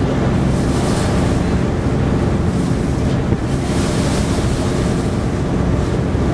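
Wind rushing over the microphone on a car ferry's deck, over the steady drone of the ferry's engine, with choppy waves splashing against the hull and surges of spray now and then.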